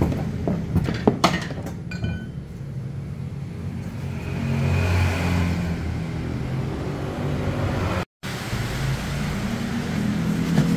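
Metal knocks and clinks of tools and exhaust parts being worked under a car: several sharp knocks in the first second or so, then one clink that rings briefly. Under them runs a steady low rumble.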